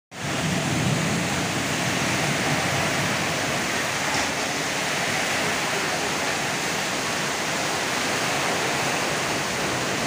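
Heavy downpour in strong wind: a steady, dense hiss of rain.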